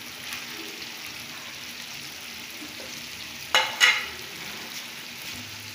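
Chicken pieces frying in hot oil in a karahi, a steady sizzle, with two short sharp knocks about three and a half seconds in.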